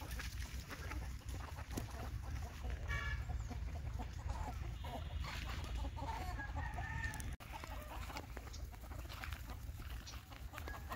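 Free-range country chickens clucking and calling, with a few short calls standing out about three seconds in and again around five to seven seconds in, over a steady low rumble.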